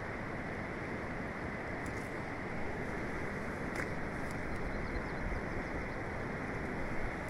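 Steady, even rushing of river current flowing past a wading angler, with a couple of faint clicks about two and four seconds in.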